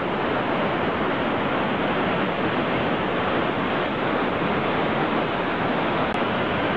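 Steady shoreline noise of surf washing and wind on the microphone, an even rush without breaks.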